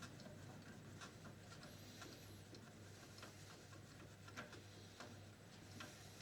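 Faint scratching and light clicks of a cotton swab being rubbed over a VCR's tape path parts, over a low steady hum.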